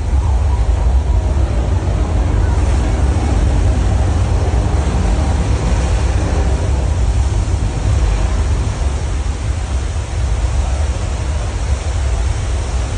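Tram-tour earthquake special effect: a steady deep rumble with a rushing, surf-like noise over it.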